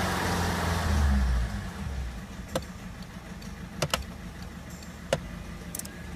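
Peugeot 307's 1.6 HDi four-cylinder turbodiesel, heard from inside the cabin, dropping from a high rev to a steady idle about a second and a half in. A few sharp clicks sound over the idle.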